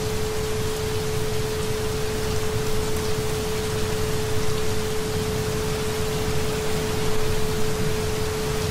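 Steady rain, an even hiss of falling drops, with a single pure tone at about 432 Hz held unbroken over it.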